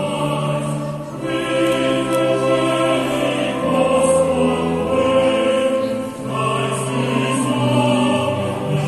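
Choir singing long held chords over an instrumental bass, with new phrases beginning about a second in and again about six seconds in.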